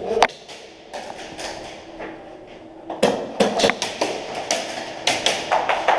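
Airsoft guns firing in an indoor arena: sharp clacks of shots and BBs striking plywood walls. There is one sharp crack a quarter second in, then a quick irregular run of shots and hits from about three seconds in.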